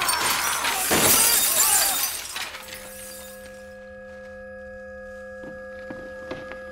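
Shattered glass and debris showering down after an explosion, then dying away about two and a half seconds in. It gives way to a steady ringing of several held tones, with a few faint knocks near the end.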